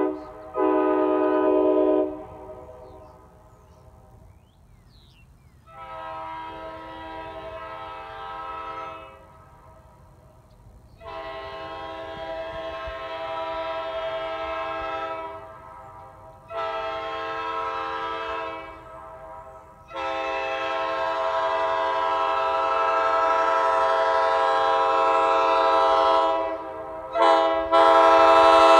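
Nathan Airchime K5LA five-chime air horn sounding its chord in a series of blasts of varying length. Some are short toots; the longest lasts about six seconds. The blasts grow louder toward the end.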